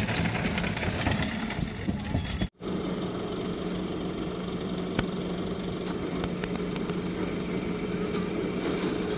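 An engine running steadily with a low, even hum and some clatter over it. About two and a half seconds in the sound cuts out for an instant, then the steady engine hum runs on.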